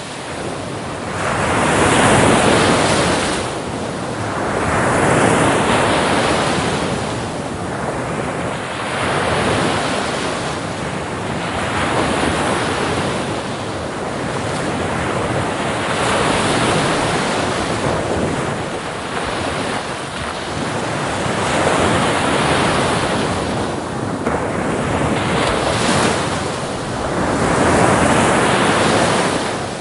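Sea waves rolling in and washing back: a surge of surf noise rises and falls about every three seconds, without a break.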